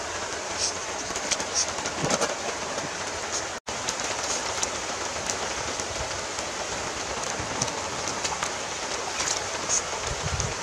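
Stream water rushing over rocks in a steady hiss, with scattered short knocks and splashes. The sound cuts out for an instant a few seconds in.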